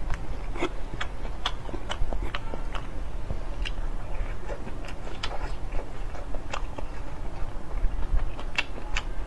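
A person chewing and biting a soft dumpling, with irregular wet mouth clicks and smacks.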